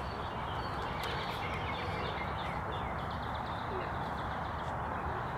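Steady background rush with faint bird chirps scattered through it.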